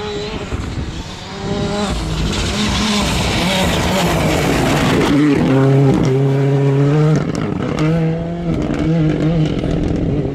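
Hyundai i20 N Rally2 rally car passing at full throttle on a dirt stage, its turbocharged four-cylinder engine revving with the pitch stepping up and down through gear changes, over a hiss of tyres on loose dirt. It gets loud about two seconds in, is loudest around the middle, and fades as the car pulls away.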